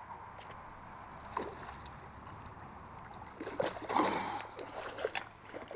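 Water splashing in a quick run of short bursts starting about three and a half seconds in, from a freshly landed fish of a couple of pounds thrashing at the water's edge.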